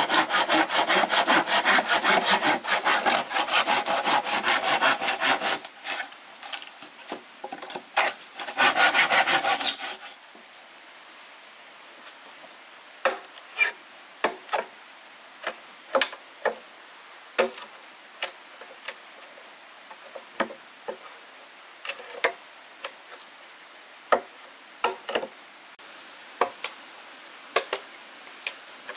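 Hand saw cutting wood with fast, steady back-and-forth strokes for about five seconds. After a short break it saws again in a brief burst. From about ten seconds in, only scattered light knocks and clicks remain, a second or so apart.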